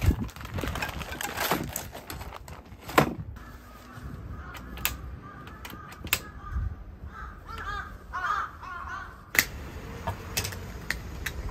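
Crows cawing repeatedly in the background through the middle, over a series of sharp clicks and knocks as kimchi is tipped from a plastic bag into a frying pan and the knob of a portable butane stove is turned, the stove's igniter clicking about halfway through.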